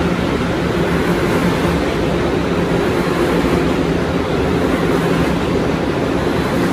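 2023 Kawasaki R211T subway train moving along an underground station platform: a loud, steady rumble of the cars on the rails with a low, steady hum underneath.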